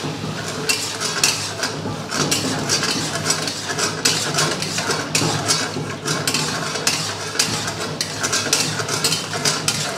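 Metal spatula stirring and scraping through mutton pieces in thick tomato gravy in a karahi (wok), with a quick run of clacks and scrapes of metal against the pan.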